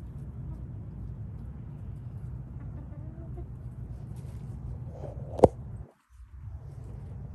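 Backyard chickens clucking softly over a steady low rumble, with one sharp knock about three quarters of the way through, after which the sound cuts out for a moment.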